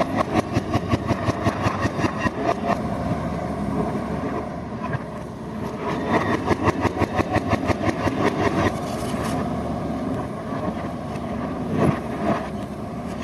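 Diesel engine of heavy earth-moving machinery running under load with a rhythmic pulsing of about six beats a second, which eases off around four seconds in and returns a couple of seconds later. A couple of sharp knocks come near the end.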